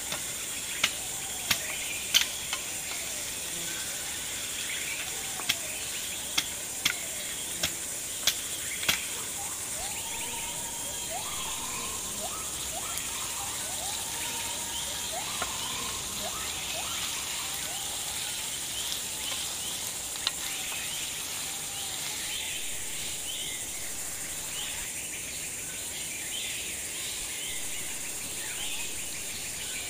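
Forest ambience: a steady high insect drone, with birds calling in short chirps mostly between about ten and seventeen seconds in. About a dozen sharp metallic clicks in the first nine seconds come from a metal spatula knocking against the iron kadai while curry is stirred.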